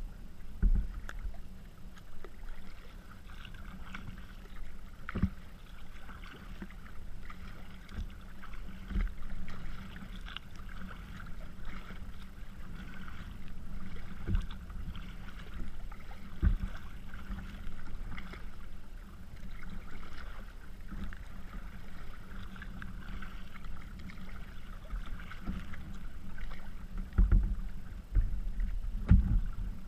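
Kayak paddling across choppy water: small waves splash and slap against the kayak's hull, with a short splash from a paddle stroke every second or two. There are louder low thumps near the end.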